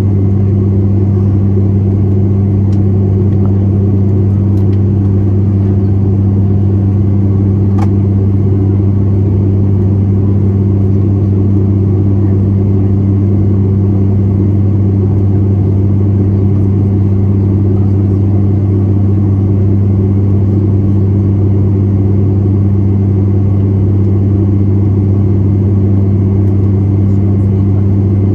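Steady, loud engine drone inside an airliner cabin in flight, a constant low hum with no change in pitch.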